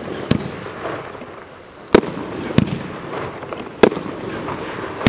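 Aerial fireworks bursting overhead: about five sharp bangs at uneven intervals, with a rough hiss between them.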